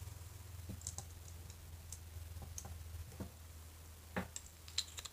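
Faint, scattered light clicks and taps of small plastic pieces and packaging being handled, the sharpest a couple of clicks near the end, over a steady low hum.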